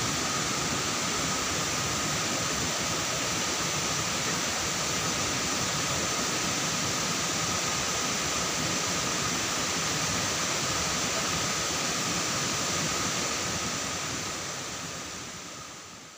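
Rushing water of a rocky forest stream cascading into a pool, a steady even rush that fades out near the end.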